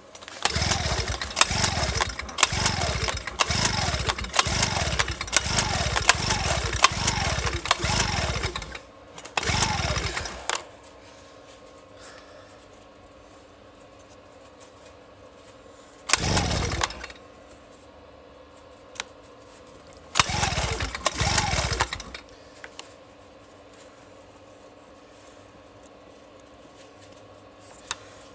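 Small two-stroke generator being pull-started: a quick run of recoil-starter pulls for about eight seconds, each with a falling whir, then three more separate pull attempts with pauses between. The engine turns over but does not catch.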